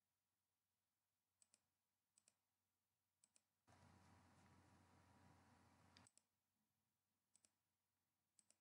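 Near silence with faint computer mouse clicks, six times, each a quick press-and-release pair, as lines are picked for trimming in AutoCAD. A faint hiss comes in for about two seconds in the middle.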